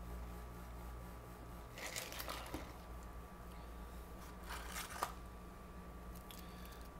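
Faint handling of a plastic drink cup and paper fast-food packaging: two short bouts of rustling, about two and five seconds in, the second ending in a sharp click, over a steady low hum.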